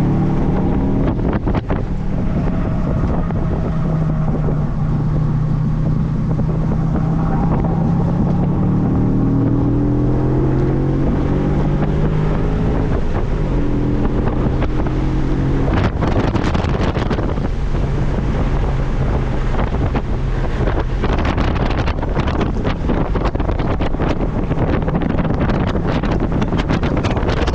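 Audi B7 RS4's 4.2-litre V8 running hard on track, its note climbing for several seconds and dropping abruptly about thirteen seconds in. Heavy wind buffets the microphone, taking over in the second half.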